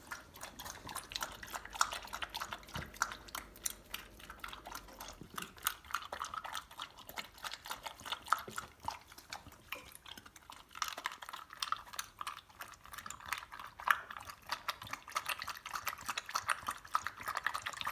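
Border collie eating dry kibble from a stainless steel bowl: rapid, irregular crunching and chewing, with kibble and her muzzle clinking against the metal bowl.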